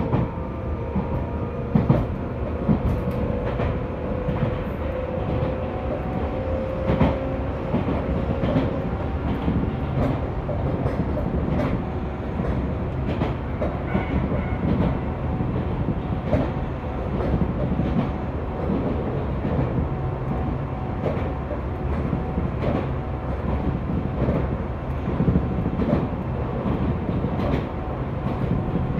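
Tobu 10000-series electric train (field-chopper control, DC compound-wound motors) running, heard from inside the motor car: a steady rumble with repeated rail-joint clicks. A faint whine rises slowly through the first nine seconds or so, then fades.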